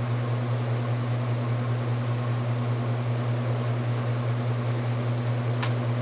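TAT 36-inch spinner ceiling fan's stamped steel motor running fast, with a loud steady hum over the rush of air from its blades. The owner calls it very hummy and takes the hum for a cyclic flux buzz. A faint short tick comes about five and a half seconds in.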